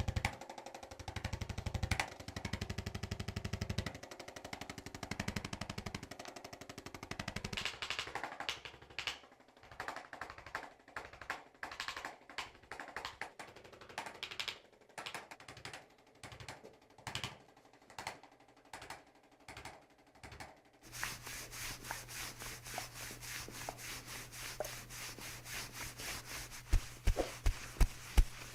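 Rapid repeated mechanical tapping, steady at first and more broken up in the middle. About two-thirds of the way in a steady motor hum starts under it, and near the end heavier thumps come a few times a second.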